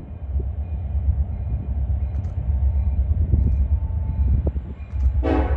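Steady low rumble of a train rolling past, led by BNSF SD70ACe diesel locomotive 9161. Near the end a loud chord of several sustained tones comes in over it.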